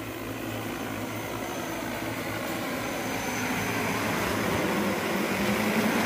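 DJI Agras T30 six-rotor agricultural drone's propellers humming steadily in flight, growing gradually louder as it flies in closer.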